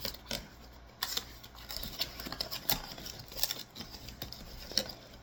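A cardboard perfume box being opened and unpacked by hand, with irregular clicks, scrapes and rustles of the packaging.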